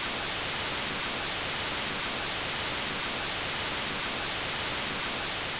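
Steady static hiss, like an untuned TV, with a thin high whine held on one pitch above it.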